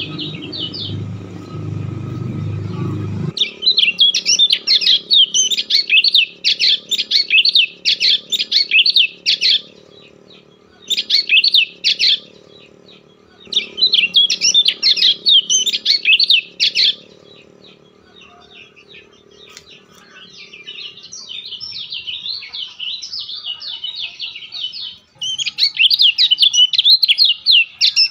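A bird chirping rapidly in runs of a few seconds with short pauses between them, over a low rumble that stops about three seconds in.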